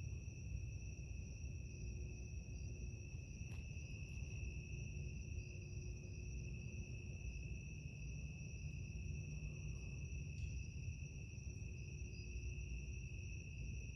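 Crickets trilling steadily on one high pitch over a low rumble, with two faint clicks, about three and a half and ten and a half seconds in.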